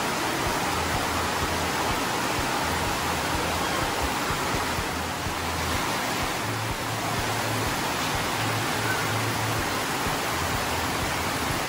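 Heavy tropical rain pouring down onto paving, pool water and thatched roofs: a steady, even hiss.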